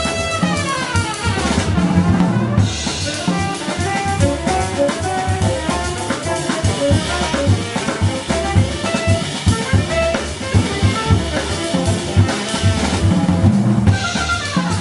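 Live jazz quintet of trumpet, tenor saxophone, piano, double bass and drum kit playing an uptempo tune. Busy drumming with a heavy cymbal wash runs through most of it; pitched melodic lines stand out near the start and again near the end.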